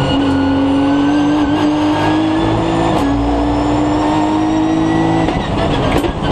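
Nissan GT-R Nismo GT3's twin-turbo V6 heard from inside the cockpit, accelerating with its pitch rising slowly. A gear change with a sharp click comes about halfway through, then the pitch climbs again until the engine is lifted off near the end, with another click.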